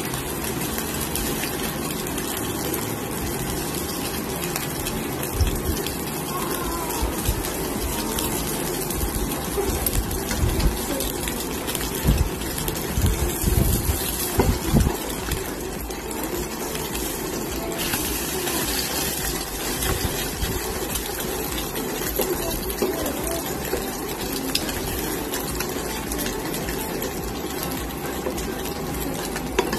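Sardine-and-egg patties frying in shallow oil in a nonstick pan, a steady sizzle, with a metal spatula scraping and pressing in the pan now and then. A few louder low thumps come about halfway through.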